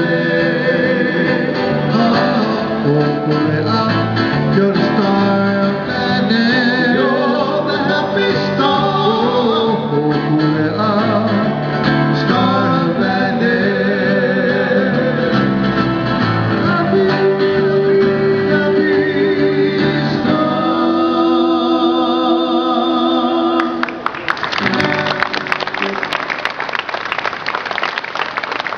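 Live Hawaiian song performance, singing with a plucked-string accompaniment, ending on held notes; near the end the audience breaks into applause.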